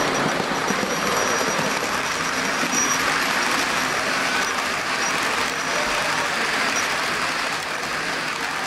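H0-scale model passenger train running past on the layout track, a steady rolling rumble of small metal wheels on the rails.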